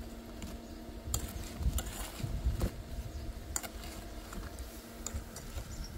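Doughnut rings (graffe) frying in hot oil: a low sizzle with scattered crackles and pops at irregular intervals.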